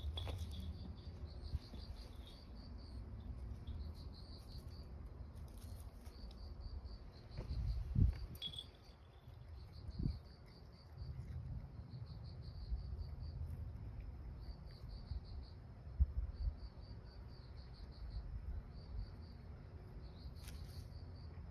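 Insects chirping in short high trills repeated at an even pace, over a low rumble on the microphone. A few dull low thumps break in, one about a third of the way in and another about three-quarters through.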